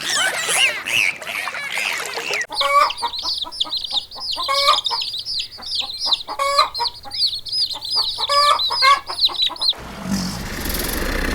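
Chickens calling, many birds at once: a dense run of quick, high repeated peeping calls over lower clucks. The sound changes abruptly about two and a half seconds in and again near the end, where it becomes noisier.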